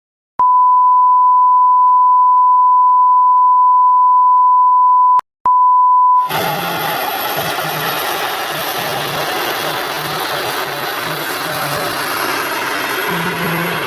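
A loud, steady single-pitch beep tone for about five seconds, breaking off briefly and returning for under a second. About six seconds in it gives way to a turbine-powered RC scale helicopter running, a dense rushing noise with a very high thin whine over it.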